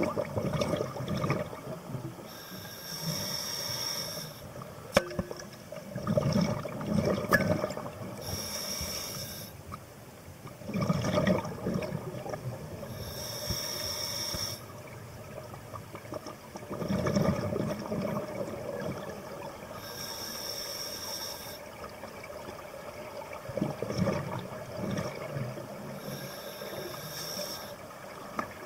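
Scuba diver breathing through an open-circuit regulator, about five slow breaths: each a hiss of inhalation through the regulator, followed by a lower bubbling rush of exhaled air. A single sharp click comes about five seconds in.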